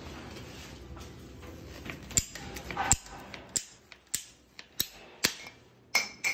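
Ratchet pipe cutter squeezed stroke by stroke through a white plastic pipe: a sharp click with each squeeze, about eight clicks a little over half a second apart, starting about two seconds in, the last ones as the blade cuts through.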